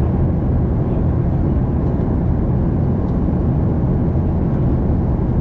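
Steady cabin noise inside an Airbus A380: an even, unbroken rush with most of its weight in the low end.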